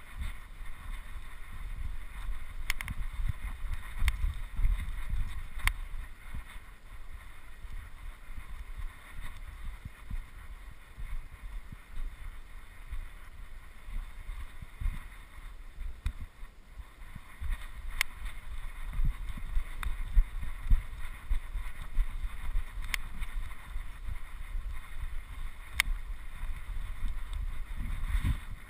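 Wind buffeting the microphone in uneven gusts, over a steady hiss, with a few faint sharp clicks.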